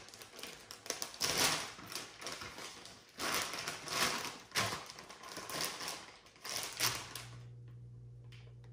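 Plastic packaging of beef liver pouches crinkling and rustling in repeated bursts as it is handled and set on a kitchen food scale. A low steady hum starts near the end.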